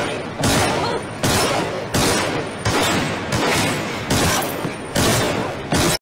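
Rushing water noise heard through an underwater camera housing, swelling suddenly and fading again about every two-thirds of a second as the diver moves.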